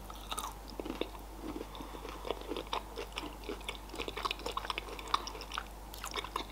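Someone chewing a mouthful bitten from a giant hollow chocolate sphere: a steady run of small crunches and mouth clicks.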